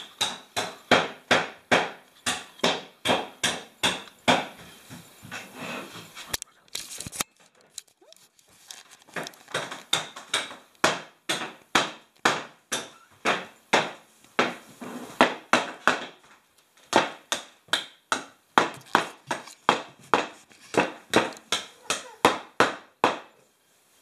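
A fast run of sharp, hammer-like knocks, about three a second, with two short pauses along the way.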